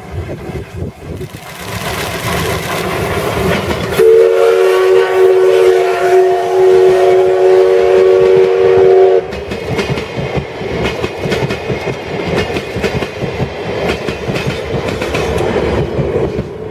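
Steam locomotive C61 20 passing close by: its running noise builds, then its steam whistle sounds one long chord of about five seconds, after which the passing coaches' wheels clatter over the rail joints.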